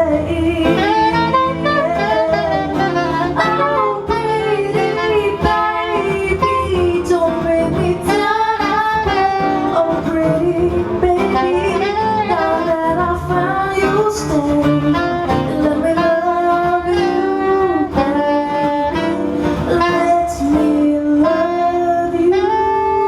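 Live band music, a saxophone carrying a gliding melody over guitar chords.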